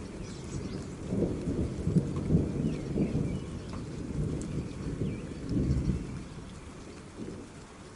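Steady rain with a roll of thunder rumbling in about a second into it, swelling and fading away over several seconds.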